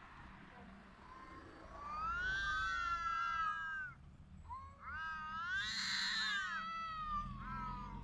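Domestic cat caterwauling, the drawn-out mating yowl of cats courting. There are two long, wavering yowls: the first starts about two seconds in, and the second starts around the middle and runs on to the end.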